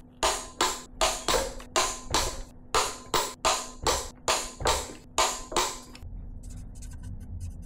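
Background music with a steady percussive beat, sharp hi-hat-like strikes about three a second, which drops to a quieter, sparser passage about six seconds in.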